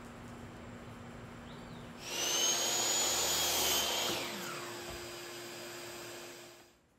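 An electric woodworking saw starts about two seconds in and cuts a board to length, its motor running with a steady high whine. The sound eases after a couple of seconds, runs on more quietly, and stops shortly before the end.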